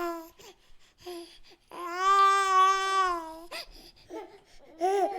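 A baby crying and babbling: short high-pitched cries, then one long drawn-out cry about two seconds in, and more short cries near the end.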